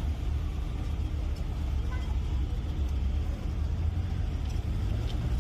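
A heavy engine running steadily with a low, even rumble.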